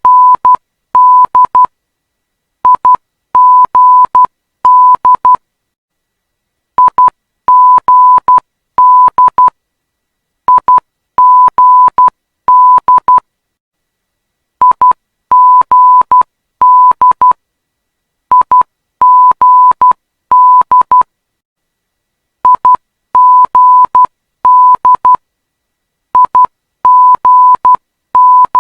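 Morse code identifier of the Perth runway 21 ILS/localizer: a single steady mid-pitched tone keyed on and off in dots and dashes. It spells a three-letter ident that repeats about every four seconds, with a short gap between repeats.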